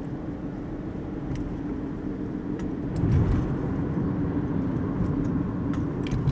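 Steady road and engine noise of a moving car heard from inside, getting louder about three seconds in.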